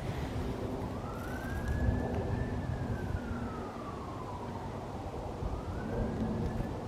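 Emergency-vehicle siren wailing: one slow rise and fall in pitch lasting about four seconds, then a second rise near the end, over a low steady rumble.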